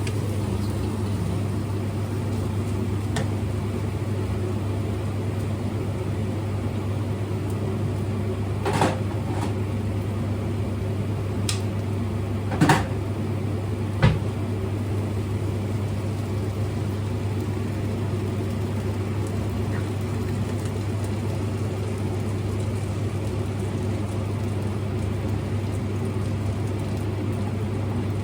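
A kitchen appliance's steady low hum, with three short knocks or clinks about a third of the way through and near the middle.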